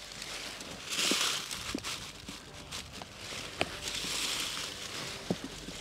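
Footsteps pushing through a leafy crop field, with leaves and stalks swishing and crunching against legs and boots in a few separate rushes and small crackles between them.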